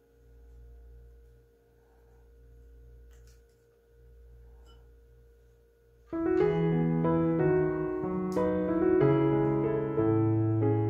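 A faint steady hum with a few soft clicks, then about six seconds in, background piano music starts suddenly, playing a slow, melodic run of notes and chords.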